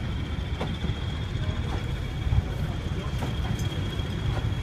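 Railway passenger coaches rolling past slowly: a steady low rumble of wheels on track, with a few faint clicks as the wheels cross rail joints. A thin, steady high-pitched whine sounds throughout.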